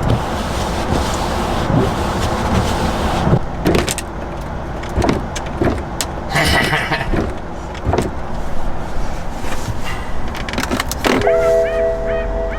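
Car driving: steady road and engine noise with occasional knocks and bumps. A few steady tones start near the end.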